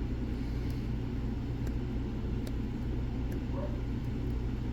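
A few faint, light clicks of a lock pick and tension wrench working the pin tumblers of a Lockwood 215P40 lockout-tagout padlock, over a steady low rumble.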